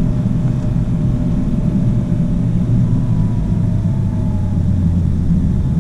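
Car on the move: steady low engine and road rumble. A faint engine tone slowly falls in pitch, and a deeper hum swells about three seconds in.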